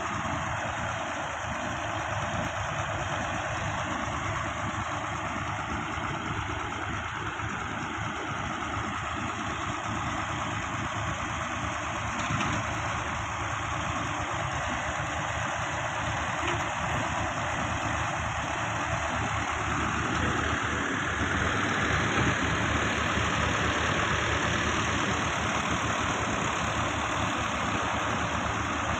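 Fiat Ghazi tractor's diesel engine running steadily while it powers the hydraulic tipper raising the loaded trolley bed to dump soil. It grows a little louder about two-thirds of the way through.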